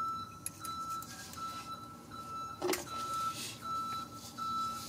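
A reversing alarm beeping: one steady high tone repeating about once every three quarters of a second. A sharp click about two and a half seconds in.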